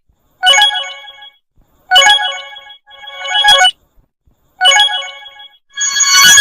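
Samsung phone notification tones played one after another: about five short chiming jingles, each roughly a second long and separated by brief silences.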